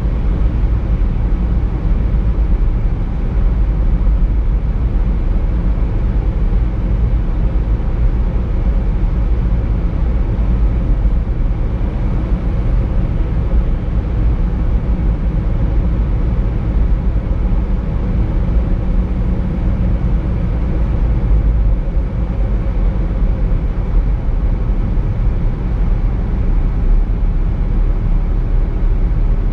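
Steady road noise from a car driving along a highway: a continuous low rumble of engine and tyres that holds even with no change in pace.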